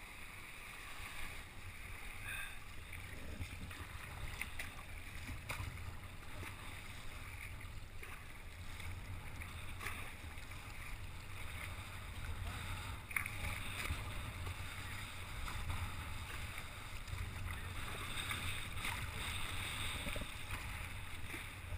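Water slapping and splashing against a paddled kayak heading into a headwind through light chop, with a low, steady wind rumble on the microphone and a faint knock now and then.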